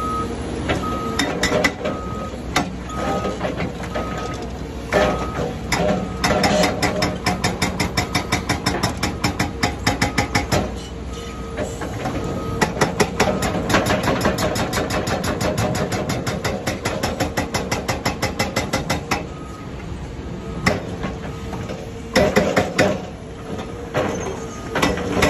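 Rammer 4099E hydraulic breaker on a CAT 336F excavator hammering reinforced concrete foundations, in long runs of rapid blows about eight a second with short pauses between them. The excavator's engine runs underneath.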